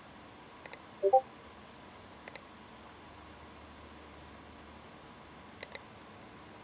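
Sharp double clicks, three times, each pair a press and release close together, over a low steady hiss. About a second in comes a quick run of short pitched electronic blips, the loudest sound.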